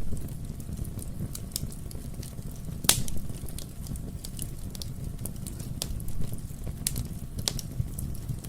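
Wood fire in a fireplace crackling: irregular sharp pops and snaps, the loudest about three seconds in, over a steady low rumble of the burning logs.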